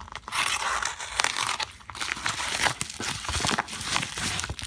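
Crinkling and rustling of a wrapped package's packaging as it is handled, a dense run of small crackles, busiest in the first couple of seconds.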